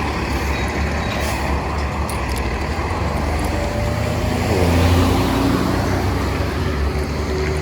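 Street traffic: a steady low rumble of passing motor vehicles, with one vehicle going by close about four and a half seconds in, its engine note dropping in pitch as it passes.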